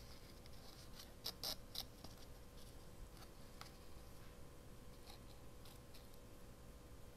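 Faint rustling and soft ticks of a thin pink ribbon being pulled through the hole of a small kraft paper tag, with a quick cluster of ticks about a second and a half in.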